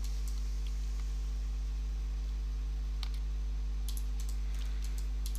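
Computer mouse clicking a few scattered times as curve points are placed, over a steady low hum.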